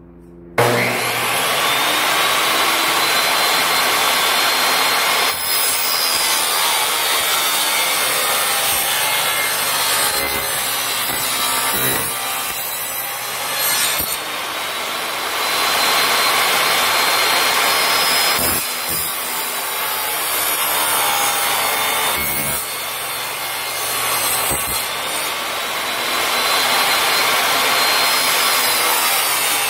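Portable table saw switched on about half a second in, running loud with a high whine as its blade, tilted to 15 degrees, cuts a bevel along the sides of a wooden picture frame. The whine's pitch bends a few times as the wood is fed through the blade.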